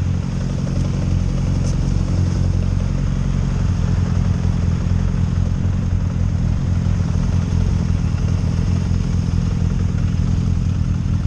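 Motorcycle engine idling steadily at a standstill.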